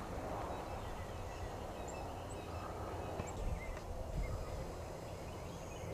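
Outdoor ambience: a steady low rumble of wind on the microphone with scattered faint, short bird chirps.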